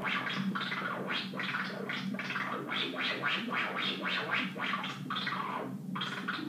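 Mogol synthesizer voice driven by a 'jerk' chaos circuit, its filter cutoff swept by the circuit's x'' output: a buzzing low tone whose filter opens and closes in irregular pulses, about three a second, giving a chaotic, gargling texture.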